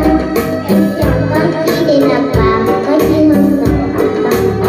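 Karaoke backing track of a Vietnamese song with a steady beat and melody, with a young girl's voice singing along into a microphone.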